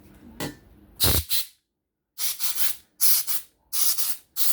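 Can of compressed air spraying in several short hissing blasts to blow debris out of a folding knife, with a pause between the first pair and the rest; the can may be running low on air.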